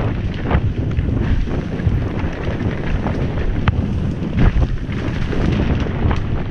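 Wind buffeting the microphone of a helmet-mounted camera on a downhill mountain bike, over a steady rushing noise of the tyres on the dirt trail. Many short knocks and clatters come from the bike jolting over bumps.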